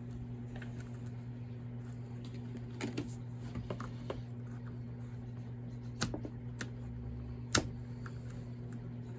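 Scattered light clicks and taps as small chainsaw parts and hand tools are handled during disassembly, the sharpest click about three quarters of the way through. A steady low hum runs underneath.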